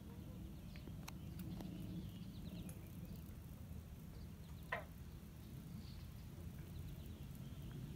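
Quiet lakeside ambience: a low steady rumble with faint scattered clicks and small chirps, and one short call sliding downward in pitch a little past halfway through.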